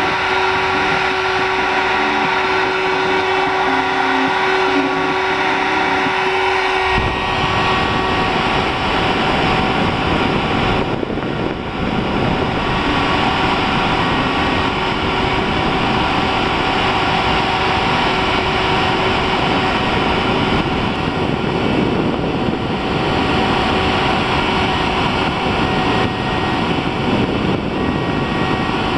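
Hobby CNC machine engraving brass: a steady motor whine with several held tones from the spindle and axis drives. About seven seconds in, the sound becomes rougher and fuller, and it stays that way.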